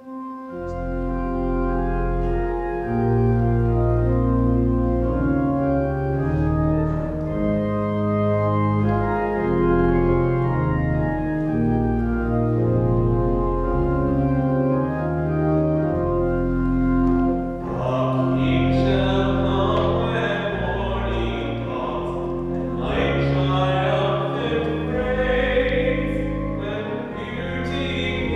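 Church organ playing the closing hymn after the dismissal, with held chords over deep bass notes; about 18 seconds in, singing joins the organ.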